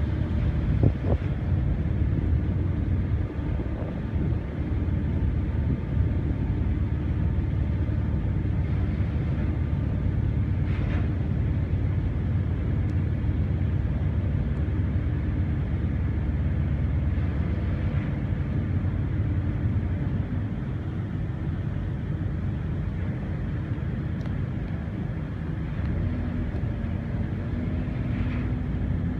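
Car ferry's engine running steadily under way, a constant low drone; the pitch of its tone steps up slightly near the end.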